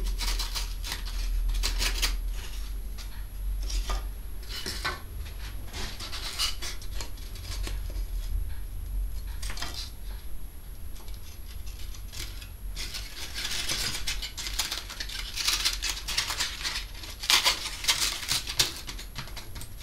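Pieces of cut polystyrene foam rubbing and squeaking against each other in short, irregular scratches as they are fitted back together and pulled apart by hand, with a denser run of scratches near the end. A low steady hum runs underneath.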